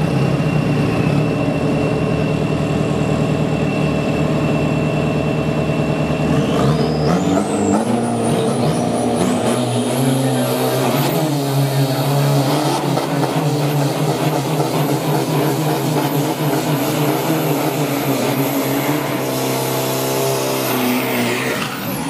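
Race-tuned Isuzu D-Max 3.0 turbo-diesel pickups at the drag-strip start line: engines idling steadily, then from about six seconds in revved up and held high, with a turbo whistle climbing steeply in pitch. Right at the end a truck pulls away off the line.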